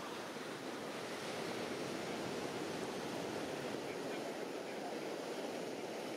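Steady wash of small sea waves breaking among shoreline rocks.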